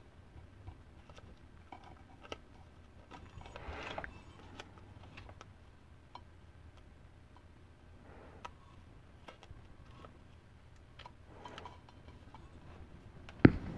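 Masking tape being wrapped and pressed around a micrometer's thin steel anvil: faint crinkles and small clicks of tape and fingers on the metal, over a low steady hum. One sharp knock comes near the end.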